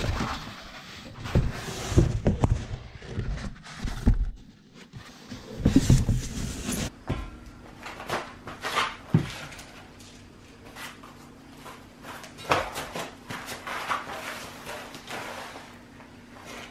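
Foam packing and a cardboard box rustling while a steel plow push bar is unpacked, with several heavy thumps in the first half. After that, a run of light clicks and knocks from steel parts being handled, over a faint steady hum.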